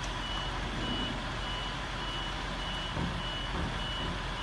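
Ambulance's electronic warning beeper sounding a steady run of short, high beeps, a little under two a second, over steady background noise.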